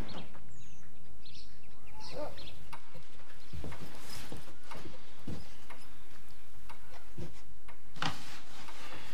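A few bird chirps at first, then scattered light clinks and knocks of crockery and tableware as a soup plate is brought to a set table, with a louder rustle near the end.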